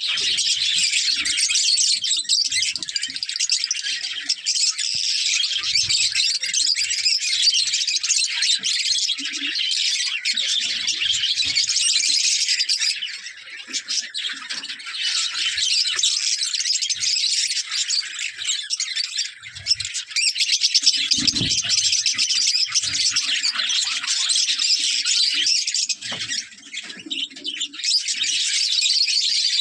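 A flock of lovebirds chattering and chirping without pause, a dense high-pitched twittering with a few brief lulls. There are a few faint low knocks, the clearest about two-thirds of the way in.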